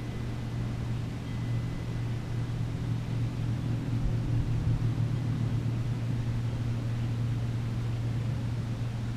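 Low, steady mechanical hum, swelling slightly a few seconds in.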